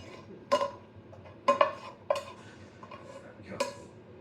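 A metal utensil clinking and knocking against a kitchen dish while sauce is scooped out and spread, about five sharp ringing knocks, two of them close together in the middle.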